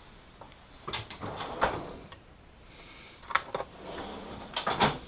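Scattered clicks and knocks of hands and tools working at the back of a car alternator in the engine bay. There are a few single knocks, then a quick cluster near the end, the loudest of them.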